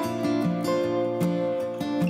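Background music: acoustic guitar playing.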